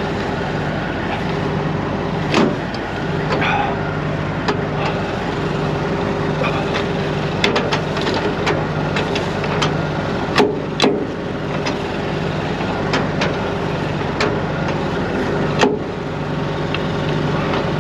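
Semi-trailer landing gear being hand-cranked, giving scattered sharp metallic clicks and clanks, over the steady drone of an idling truck engine.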